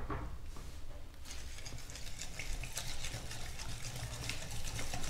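Wet cake batter of egg, yogurt, oil and brown sugar being mixed by hand in a ceramic bowl, a sloshing, clicking stir that starts about a second in.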